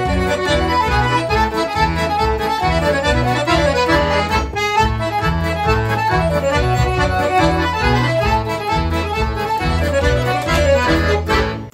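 Hohner piano accordion playing a fast Christmas medley: quick melody runs on the right-hand keys over a steady, even bass-and-chord pulse, with a short break near the end.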